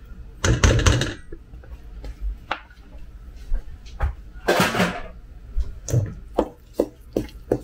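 Irregular clinks, scrapes and knocks of kitchenware. A silicone spatula scrapes melted butter from a nonstick pan into a stainless steel mixing bowl, the pan is set down, and a wooden spoon knocks against the bowl. The loudest clatters come about half a second in and again around four and a half seconds.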